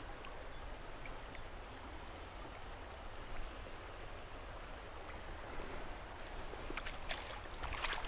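Shallow stony stream running, a steady rush of water. A few brief splashes near the end as the trout is lowered back into the water.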